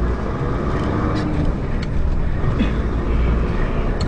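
Steady low rumble of a moving car's engine and tyres on the road, with no impact.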